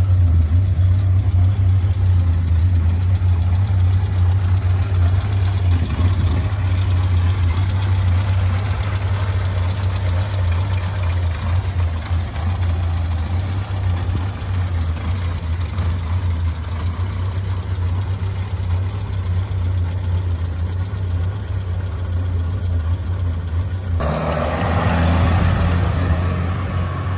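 1967 Citroën HY van's engine idling steadily with a deep hum. About three seconds before the end it revs and the van pulls away.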